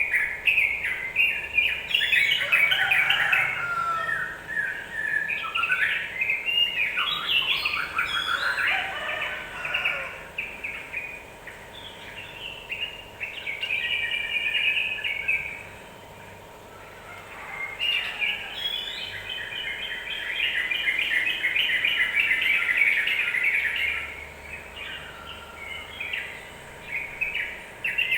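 Yellow-vented bulbuls (trucukan) singing in long runs of rapid, chattering notes, with two short lulls partway through. This is a lure recording played to provoke a kept trucukan into singing.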